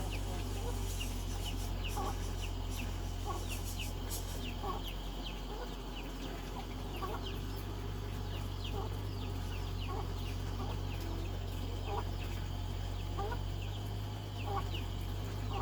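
Poultry calling: short, high, falling peeps repeat a few times a second, with lower, rising calls about once a second, over a steady low rumble.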